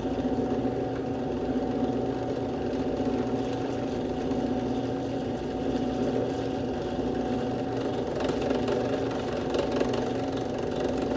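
Electric drill motor running at a steady speed with a constant hum. Light scratchy sounds from the bit meeting the workpiece come in about eight seconds in.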